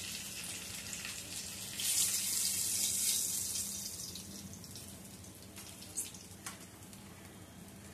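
Hot mustard oil sizzling in a wok as fried khoira fish are lifted out with a silicone spatula. The sizzle swells about two seconds in and dies down over the second half, with a couple of light clicks near the end.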